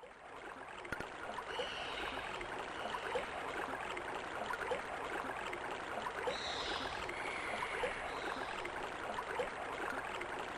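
Sampled water sound from a Commodore Amiga demo's soundtrack: a steady wash of lapping water with many small ticks, fading up over the first second or so.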